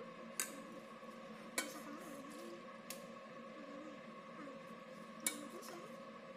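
Metal ladle clinking against a stainless-steel colander and a bowl while scooping cooked macaroni: four sharp clinks, one of them softer, over a steady low hum.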